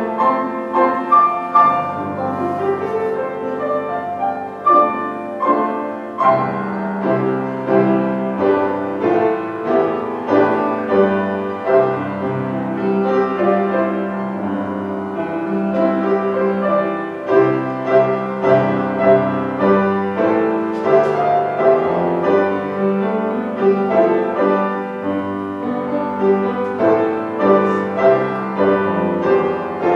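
Upright piano being played: a steady piece of sustained chords under a melody.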